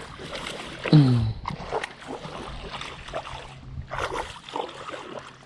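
Water splashing and sloshing at the river's edge as a hooked smallmouth bass is fought toward the bank, with a brief falling vocal exclamation about a second in.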